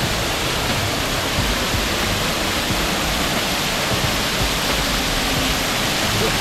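Waterfall pouring close by: a loud, steady rush of falling water.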